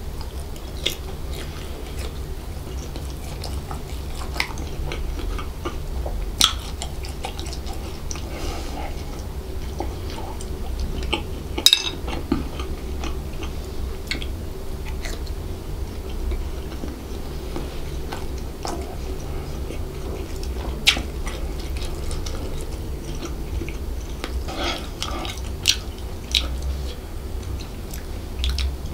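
Close-miked chewing and biting of devilled chicken sausage pieces, with sharp clicks scattered every few seconds, the sharpest about twelve seconds in, over a steady low hum.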